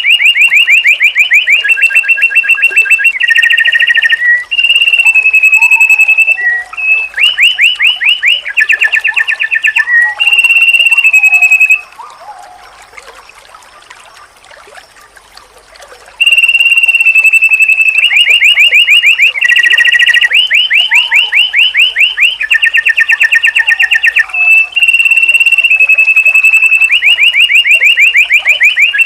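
White-eye (pleci) song played as a training recording: loud, high, rapid trills alternating with held whistled notes, repeating over and over, with a pause of about four seconds partway through.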